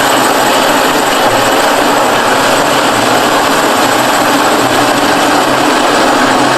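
Bulldozer engine running steadily: a loud, dense mechanical noise with an uneven low throb. It starts abruptly.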